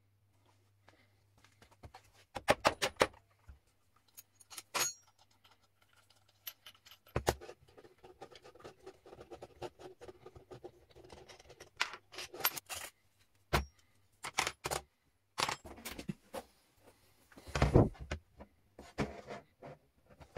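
Metal hardware and wooden parts being handled and set down on a wooden workbench: a string of separate clinks and knocks, loudest about two and a half seconds in and again near the end.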